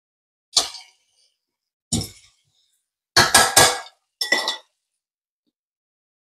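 Metal tongs knocking and clinking against a skillet in separate strikes: one, another, a quick pair, then a last ringing clink.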